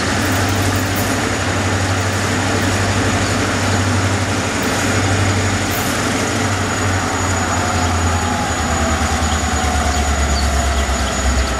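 EMD GP38-2 diesel locomotive hauling a freight train slowly toward the listener, its engine running with a steady low drone. The engine note drops lower about seven seconds in.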